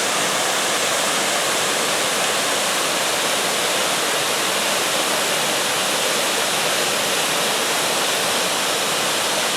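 Waimea Falls waterfall pouring into its plunge pool: a loud, steady rush of falling water.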